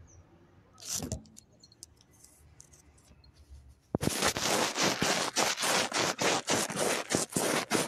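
Phone handling noise: a brief swish about a second in, then from about four seconds in a loud, continuous crackling and scraping as the phone's microphone rubs against fabric.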